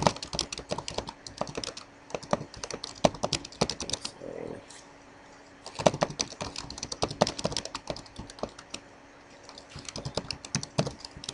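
Computer keyboard typing: runs of rapid keystrokes, with two short pauses about four and nine seconds in.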